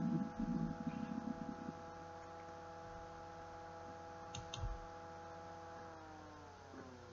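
Faint steady hum made of several even tones that slide down in pitch near the end, with a click and a low thump about four and a half seconds in.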